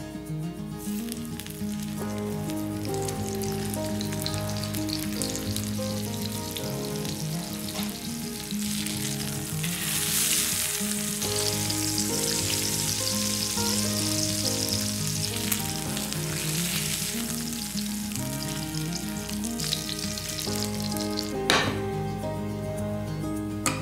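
Sesame-crusted salmon fillets sizzling as they fry in hot oil in a nonstick pan. The sizzle starts about a second in as the fish goes into the oil and grows louder in the middle stretch. A single sharp knock comes near the end, over soft background music.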